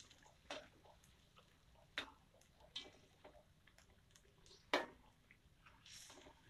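Faint, scattered knocks of a metal spatula against an aluminium wok as fish is stirred in its broth, the loudest about five seconds in.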